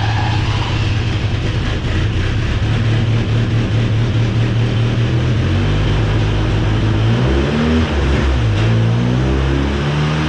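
Old Ford Ranger's fuel-injected engine running rough and rich. It holds a steady idle for about six seconds, then the revs sag and waver as it threatens to die and pick up again near the end. The stumbling comes from an injector stuck open and flooding the engine.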